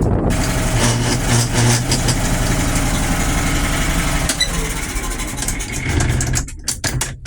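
IH 3588 tractor's diesel engine running steadily, its sound thinning out near the end.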